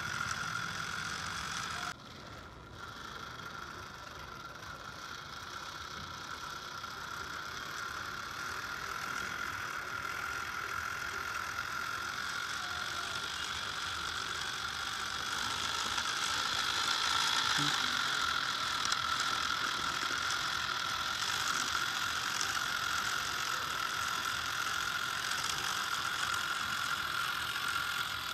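Small geared electric motor of a model tractor running steadily under load, a steady gear whine over a hiss. The sound drops off sharply about two seconds in, then slowly grows louder.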